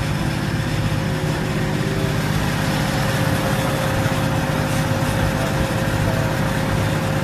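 Vehicle engine idling steadily: a low drone with a constant whine above it, unchanging throughout.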